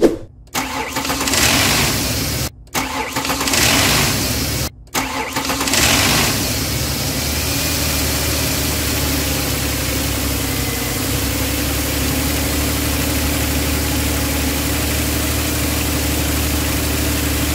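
Ford Explorer engine starting up after its timing-chain tensioner was replaced. It comes in uneven surges over the first few seconds, then settles into a steady idle from about six seconds in.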